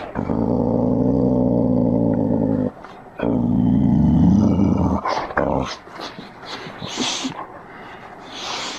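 Dog making two long, low growling grumbles, the second bending up in pitch near its end, then softer snuffling noises.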